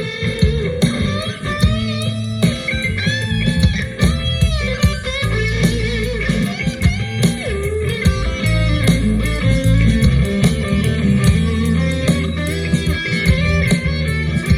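Recorded blues-rock music in an instrumental break: an electric guitar solo with bent notes over a heavy bass line, played back through a sound system with a subwoofer during a sound check.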